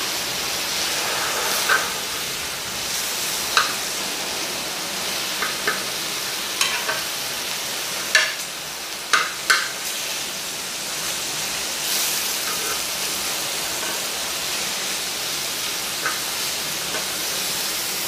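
Sliced pork and kimchi sizzling steadily in a grill pan over a portable gas burner, while metal tongs stir the meat, scraping and clicking against the pan in several sharp clicks scattered through.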